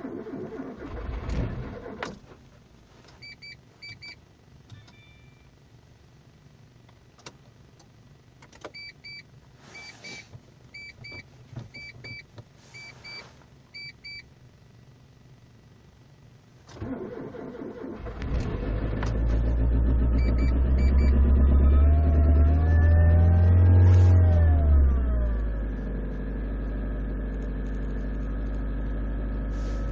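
Mitsubishi Colt engine cold-starting at 28 below zero. After a brief low rumble and several groups of short electronic beeps, the starter cranks and the engine catches, is revved up and back down once, then settles into a steady fast cold idle. The frozen engine sounds very bad, rough, like a tractor: 'trrrrr'.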